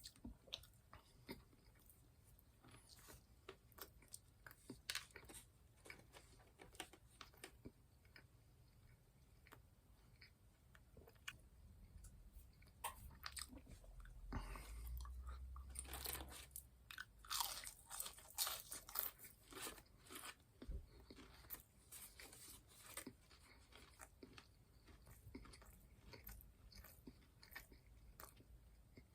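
Close-up crunching and chewing of crispy, batter- or breadcrumb-coated fried food, heard as many sharp crisp crackles, with a louder, denser run of crunching in the middle.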